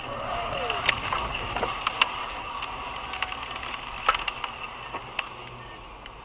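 Aftermath of a truck slamming into a car, heard from inside a following car: sharp clacks and knocks of flying debris scattered over several seconds, over the steady road noise of driving at highway speed.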